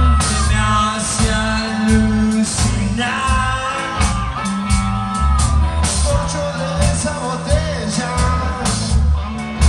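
Rock band playing live: electric guitars, bass and drums, with a man singing and a harmonica playing held, wavering notes.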